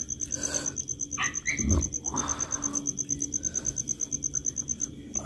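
A cricket chirping steadily in a fast, even pulse of high notes that pauses briefly near the end. Under it are soft eating and handling sounds, with a dull thump a little under two seconds in.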